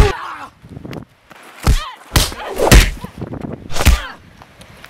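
Fight-scene punch and hit sounds: about five sharp, heavy smacks over four seconds, mixed with grunts and shouts of effort from the fighters.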